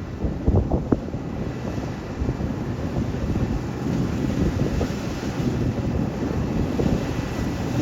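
Combine harvester running steadily during grain harvest, with wind buffeting the microphone.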